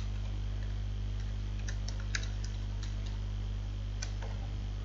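Scattered keystrokes and clicks on a computer keyboard and mouse, a handful of light taps spread unevenly, over a steady low hum.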